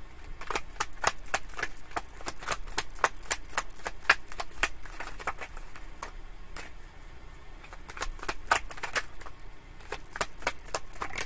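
A tarot deck shuffled by hand: a quick, irregular run of card clicks and snaps, thinning out a little partway through before picking up again.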